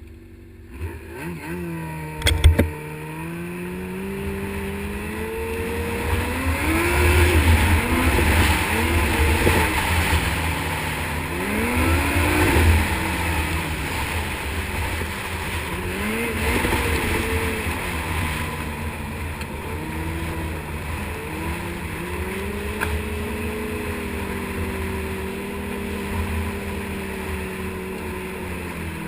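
Snowmobile engine running under way, its pitch climbing and dropping several times as the throttle is worked, then holding steadier at cruising speed. A single sharp knock sounds about two seconds in.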